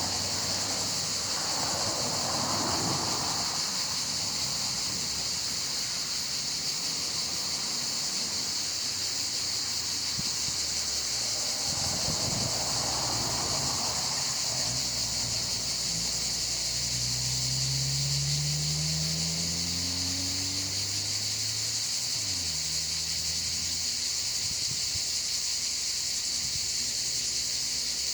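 Steady, continuous shrilling of cicadas. Brief rustling twice and a low drone rising in pitch about two-thirds of the way through.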